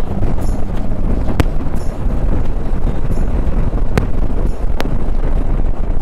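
Heavy wind noise buffeting the microphone of a motorcycle riding at highway speed, over a steady low rumble of engine and road, with a few sharp ticks.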